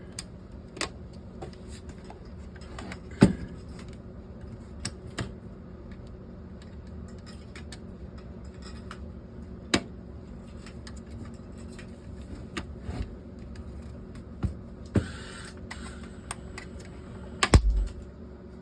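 Scattered plastic clicks and knocks from a car stereo head unit's faceplate being worked loose from its clips, with a brief scrape about 15 seconds in and a sharp snap near the end as it comes free. A steady low hum runs underneath.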